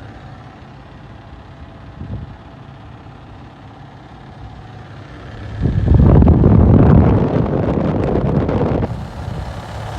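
Toyota Tacoma engine running with the A/C on, its compressor making a rough sound from worn bearings. The noise grows much louder for about three seconds past the middle, then drops back.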